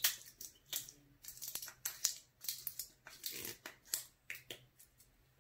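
A small cosmetics jar of eyeshadow being handled: a scattering of light clicks, taps and rustles.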